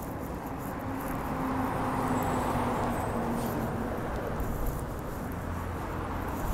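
Road traffic going by: engine and tyre noise of passing cars, swelling about two seconds in as a vehicle goes past and then easing, over a low steady engine drone.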